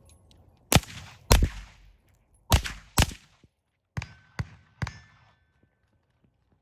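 Suppressed FN FS2000 5.56 bullpup rifle firing double taps: two loud pairs of shots, then three quieter shots a second or so later, each with a short echoing tail. A faint ringing tone sounds under the last three shots.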